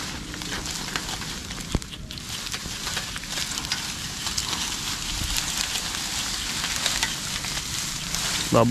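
Cut grass being raked up, a steady rustling crackle with many fine ticks that grows somewhat louder toward the end, with one sharper tick a little under two seconds in.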